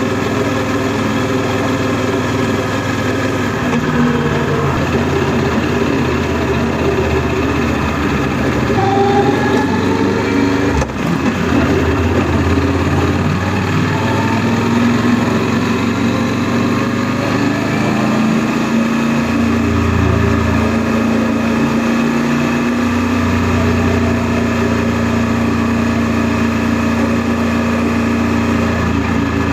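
Honda NC700S motorcycle's parallel-twin engine running while riding, its note shifting up and down several times with throttle and gear changes, with a brief dip about eleven seconds in.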